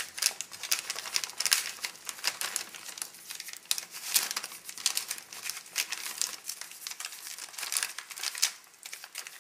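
Crinkling and crackling plastic as MRE food pouches are pushed and worked into a clear plastic flameless ration heater bag. The crackles come in an irregular stream, with a short lull near the end.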